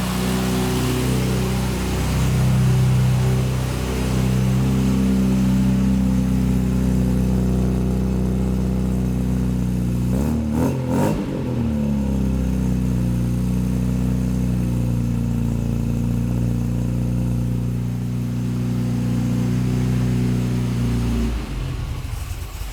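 Freshly rebuilt classic Mini Cooper's A-series four-cylinder engine running steadily after its first start, sweet and fairly quiet, with no air filter fitted. Its note wavers briefly about halfway through.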